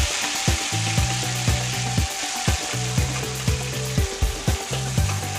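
Potato and pointed gourd (potol) pieces frying in hot oil in a karahi, a steady busy sizzle, with a spatula stirring them about four seconds in. A low thump about twice a second runs underneath.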